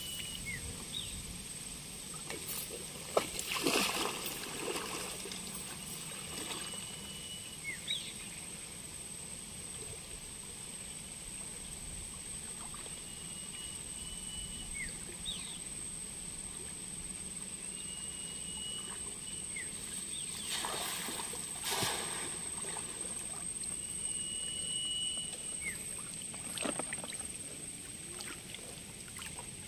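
Water sloshing and splashing as a man wades out into a river with a cast net and throws it, with two louder rushes of splashing about 3 seconds and 21 seconds in. Behind it runs a steady high-pitched whine, and a short whistled note repeats every five or six seconds.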